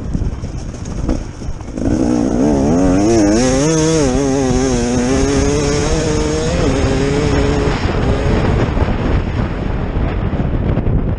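KTM 250 EXC two-stroke enduro motorcycle engine, heard from the rider's helmet. It is off the throttle for about two seconds, then revs hard under acceleration with the pitch wavering as the throttle works. The pitch drops once partway through, holds, and eases back to a rough rumble near the end.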